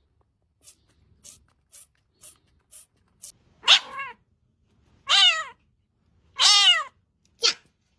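A series of short, faint, breathy puffs about two a second, then a cat meowing loudly four times, each call falling in pitch, the last one short.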